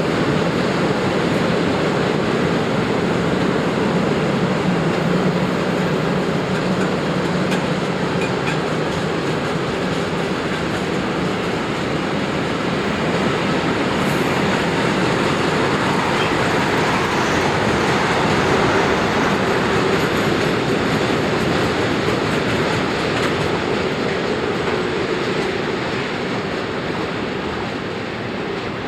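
Freight train rolling past on the rails: a steady rumble and rush of wagons that eases off near the end.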